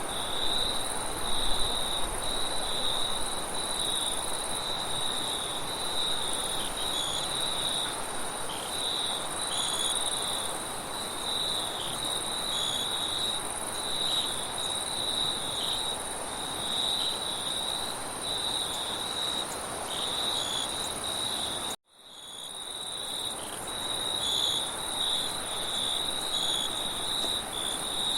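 Crickets chirping in a dense, steady trill, with a second, higher insect chorus and a soft rush of wind beneath. About 22 s in, the sound cuts out for a moment and fades back in.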